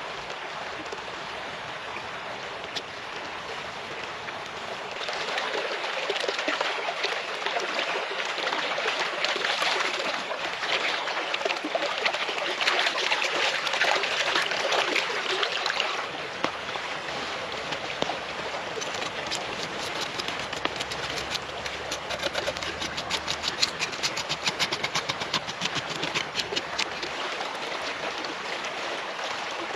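Shallow stream running over stones, with louder splashing starting about five seconds in and lasting about ten seconds as a fish is rinsed by hand in the water. Later comes a quick run of light knife strokes on the fish against a wooden chopping board.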